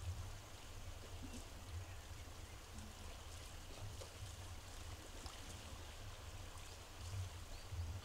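Steady outdoor rush of running water, with wind rumbling unevenly on the microphone.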